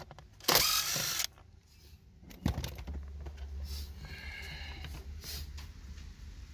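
Cordless DeWalt brushless impact driver running briefly, for under a second about half a second in, backing out a 7 mm trim screw; then a few light clicks and a low steady hum.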